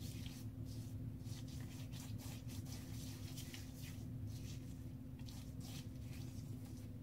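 Fingers rubbing shaving lather onto the face and neck: faint, irregular soft rubbing strokes over a steady low hum.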